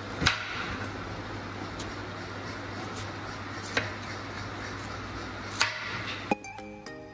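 A chef's knife cutting through raw pumpkin and knocking on a wooden chopping board: five sharp knocks, a second or more apart, over a steady low hum. Background music starts near the end.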